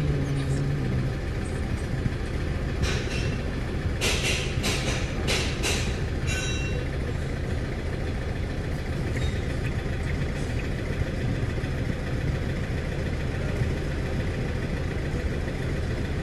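Ford Fiesta's diesel engine idling, heard from inside the cabin, as a steady low hum. It is misfiring from a dead number-two injector. A few short, sharp noises come about three to six seconds in.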